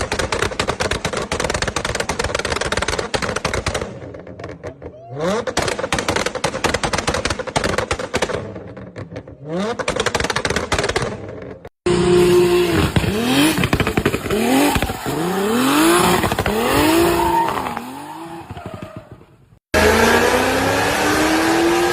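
Tuned car exhausts popping and crackling in rapid strings as the engines are revved. There are dense crackles at first, then short rising revs. After a cut come about half a dozen quick throttle blips, each with crackles on the overrun, and near the end one long rising rev.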